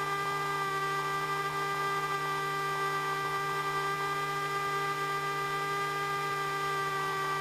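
Light aircraft's engine and cabin noise heard through the intercom audio feed as the plane departs: a steady hum holding several fixed tones.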